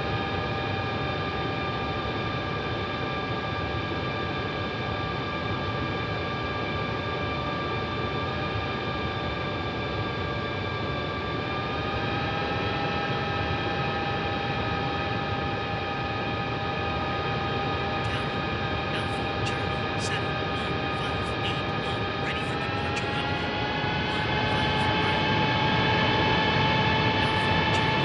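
Airbus A321neo jet engines heard from inside the cockpit: a steady whine of several tones over a low rumble. The pitch rises slightly about twelve seconds in, then rises again and grows louder about twenty-two seconds in as the engines spool up.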